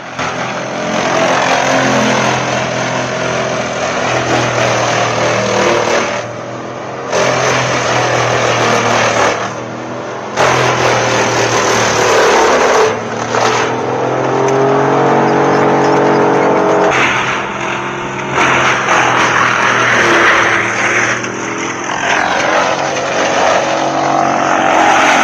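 Large industrial wood chipper running at full power while logs are fed through it: a steady engine drone under loud grinding and shredding of wood by the cutter, which breaks off briefly a few times. Around the middle the engine note sags and recovers as it takes the load.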